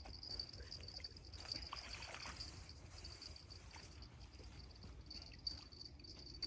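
Crickets trilling steadily and faintly, over a low rumble, with a few faint ticks and rustles.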